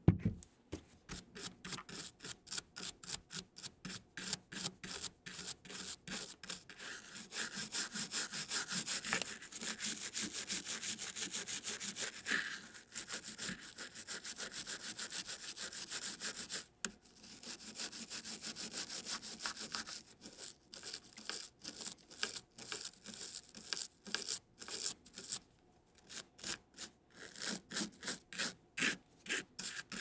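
Toothbrush bristles scrubbing a wet keyboard circuit board: rapid back-and-forth scrubbing strokes, a few a second, with a couple of brief pauses.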